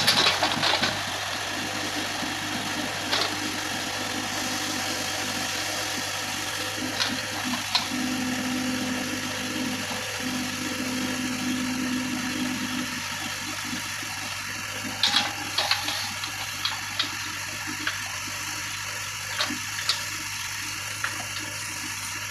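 Case 580K backhoe loader's diesel engine running steadily with a hissing wash of noise. A steady higher tone comes in for about five seconds in the middle, and several sharp clicks and knocks sound in the second half.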